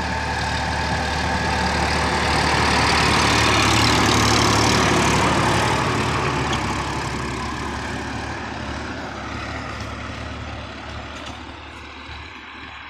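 Sonalika DI-50 RX tractor's diesel engine running steadily while pulling a rotary tiller through dry soil. It grows louder to a peak about four seconds in, then fades as it moves away.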